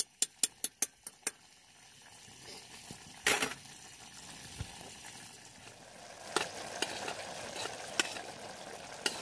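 Mushroom tadka frying in a pan, sizzling, with a spoon stirring and clinking against the pan. A quick run of sharp clicks opens it, a louder scrape comes about three seconds in, and the sizzling grows louder from about six seconds on.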